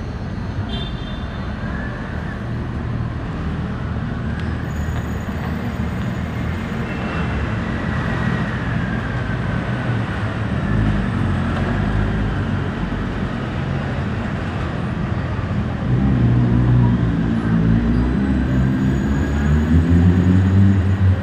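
City street traffic running steadily, with a heavy vehicle's engine passing close and growing louder in the last few seconds.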